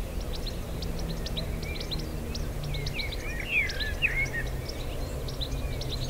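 Small birds in hedgerows singing and chirping: quick high chirps throughout, with a busier run of warbled notes in the middle, over a steady low background rumble.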